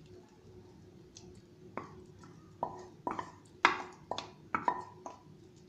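A spoon knocks on the rim of a bowl about nine times, quick sharp taps each with a short ring, shaking the last of the washed poha out into the pan of hot milk.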